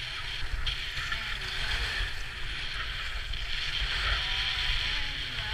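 Skis carving and scraping over packed snow at speed, a steady hiss, with wind buffeting the microphone as a low rumble.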